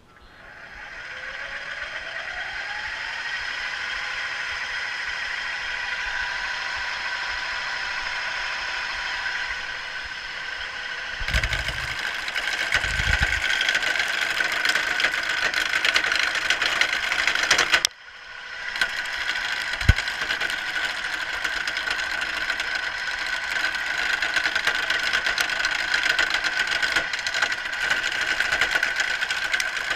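Craftsman wood lathe motor starting up, its whine rising over the first few seconds and then running steadily. From about a third of the way in, a carbide turning tool cuts the spinning wooden spindle, adding a steady scraping hiss, with a brief break a little past the middle and a single sharp knock soon after.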